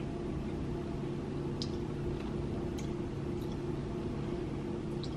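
Quiet room tone: a steady low hum with a few faint, short clicks, likely from a creamer carton being handled or sipped from.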